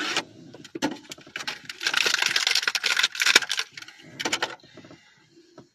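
Plastic action-figure packaging being handled: crinkling and rustling with irregular clicks and knocks, thickest a couple of seconds in and dying down near the end, as the figure is worked out of its box.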